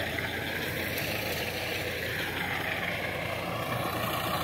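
Sonalika DI-745 III tractor's diesel engine running steadily while it tills with a rotavator.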